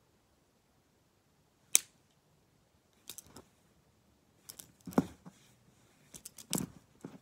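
Plastic gel pens clicking and knocking against each other in hand: one sharp click about two seconds in, then scattered clicks and taps that come thicker in the last few seconds.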